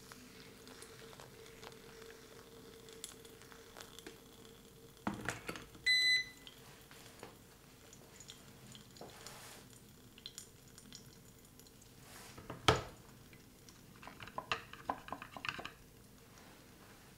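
Quiet brewing sounds around a pour-over dripper: a knock about five seconds in, then a short double electronic beep. Later a single sharp tap, the loudest sound, and then a quick run of small clicks and taps as the clear plastic V60 dripper is taken in hand on its glass server.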